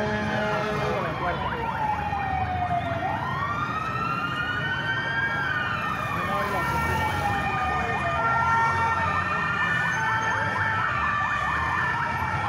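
Emergency vehicle siren wailing in slow sweeps, each falling in pitch over about three seconds and then rising again quickly.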